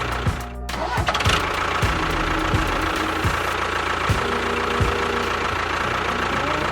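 A small engine-type motor running steadily, with a brief dip about half a second in.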